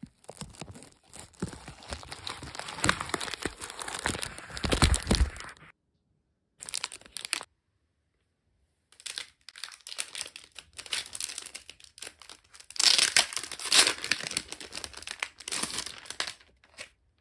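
Clear plastic wrapping crinkling and tearing as it is pulled off a diary by hand, in runs of dense crackling that stop dead twice in the middle.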